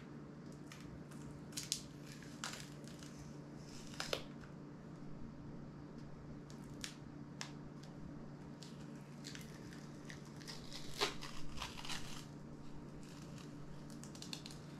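Scattered small clicks, scrapes and crinkles from an HTC U Ultra smartphone being pried apart with a plastic pry tool and its plastic and foil layers being handled, busiest about eleven seconds in. A steady low hum runs underneath.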